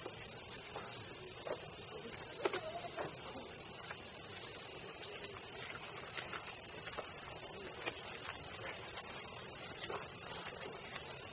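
Cicadas buzzing steadily and high-pitched in the trees, an unbroken summer chorus. Scattered light footsteps and clicks sound over it, with one sharper click about two and a half seconds in.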